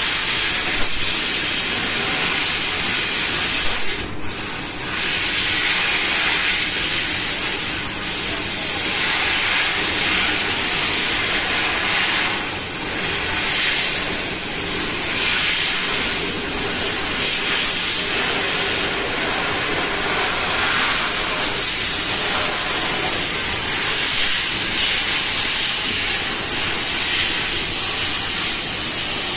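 SENFENG SF3015G fiber laser cutter cutting steel sheet: a loud, steady hiss of the cutting jet at the nozzle, swelling and easing now and then as the head cuts, with a brief dip about four seconds in.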